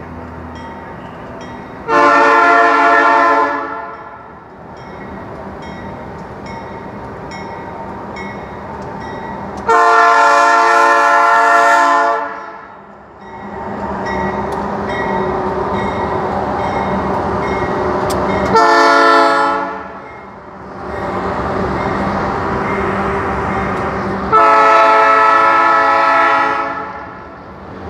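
Diesel freight locomotive sounding its multi-tone air horn four times, long, long, short, long. Between the blasts the locomotives' diesel engines and the wheels of an empty grain hopper train rumble louder as the train passes close by.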